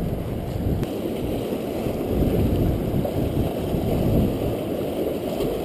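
Steady low noise of wind buffeting the microphone, with waves washing against the rocks of a jetty.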